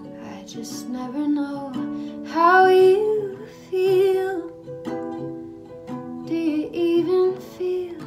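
Background music with plucked strings.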